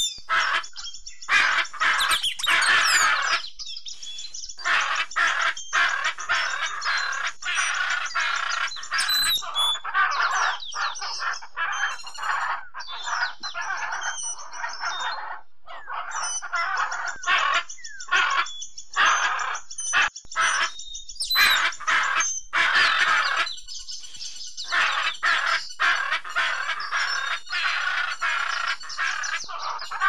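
Parrots calling: many shrill calls in quick succession, broken by brief pauses.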